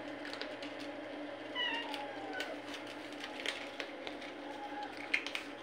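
Domestic cat meowing, one falling meow about a second and a half in and a fainter one near the end, over many small clicks from the cats eating wet food out of a plastic feeding tray.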